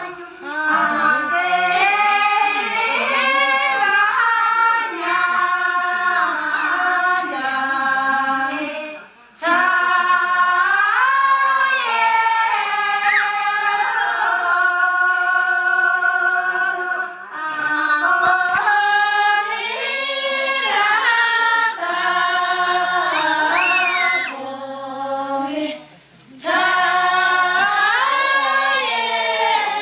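A group of Upper Mustang women singing together without accompaniment, in long held phrases that break off briefly about 9 seconds in and again about 26 seconds in.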